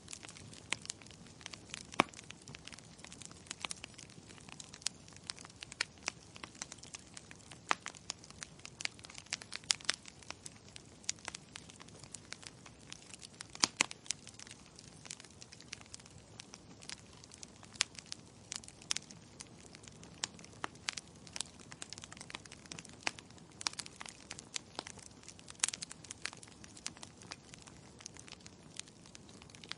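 Wood logs burning in a fireplace, crackling with dense, irregular snaps over a soft steady hiss. A few sharper pops stand out, about two seconds in, near the middle and near the end.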